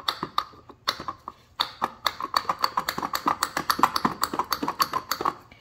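Loose aluminium flywheel of a Homelite leaf blower engine rocked back and forth by hand on its crankshaft, clicking against it: a few scattered clicks, then rapid clicking about seven a second from about a second and a half in, stopping near the end. The flywheel has play on the shaft, which the owner takes for a sheared flywheel key.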